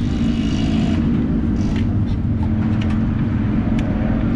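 Steady low rumble of race car V8 engines running, with a few light ticks over it.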